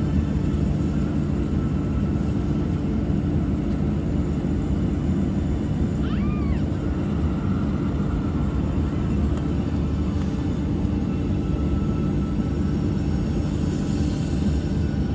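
Steady cabin drone of a Boeing 737-800's CFM56-7B turbofan engines at idle, heard from a window seat beside the engine. A short high tone rises and falls about six seconds in.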